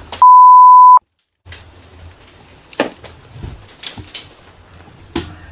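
A censor bleep: one loud, steady beep lasting under a second, cut off into a moment of dead silence. After it comes faint handling noise with a few sharp clicks as the camera is moved about.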